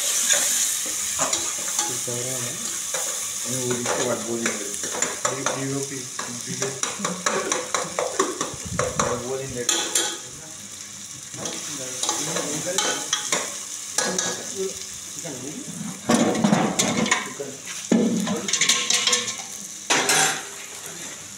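Steel ladle scraping and clinking against an aluminium pot while sliced onions are stirred as they fry, over a steady sizzle. The scraping grows louder and heavier in a few bursts in the last five seconds.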